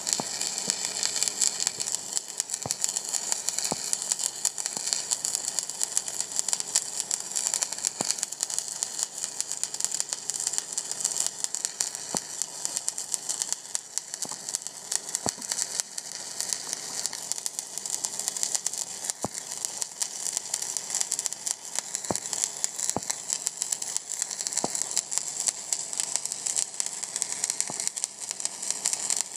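Stick welding arc of a 1/8-inch 7018 electrode at about 120 amps, dragged along a fillet joint without weaving: a steady crackling sizzle with scattered sharp pops.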